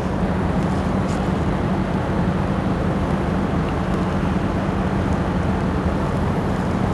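Steady rushing background noise with a constant low hum underneath, like a machine or fan running.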